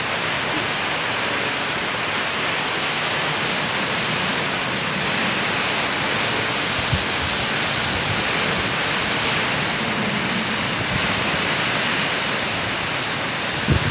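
Strong typhoon wind with rain: a steady, unbroken rush of noise.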